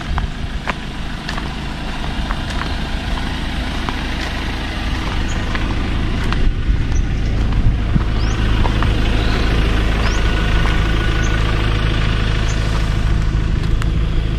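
A motor engine running steadily at one speed, growing slowly louder, with a few short bird chirps above it.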